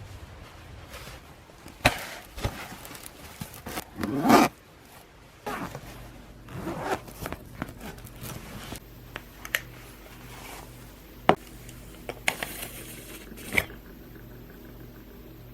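Hand-handling sounds: irregular scrapes and rubs, a longer rasp about four seconds in, and several sharp clicks and taps.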